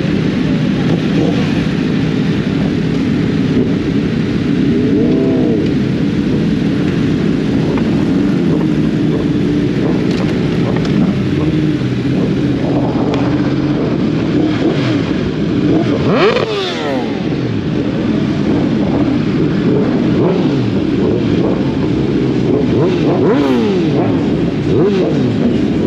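Sport bike engines running during a group ride, the pitch rising and falling as they rev up and shift. About sixteen seconds in, one engine revs sharply up and back down.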